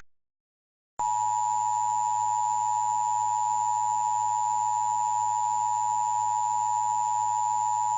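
Emergency Alert System attention tone: a single steady, unwavering electronic tone that starts about a second in and holds. It follows the tail of the last SAME digital header burst, which cuts off right at the start.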